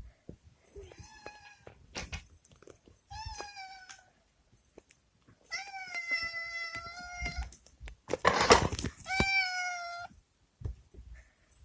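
Domestic cat meowing four times. The third meow is long and drawn out, and a short, loud noisy burst comes just before the last one.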